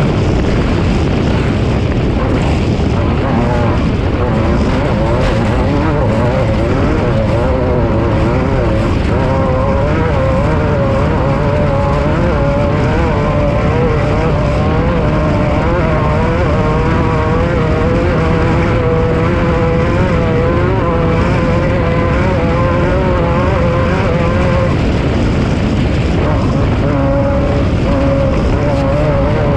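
Off-road race vehicle running at speed, its engine note rising and falling continually with the throttle over loud, steady noise.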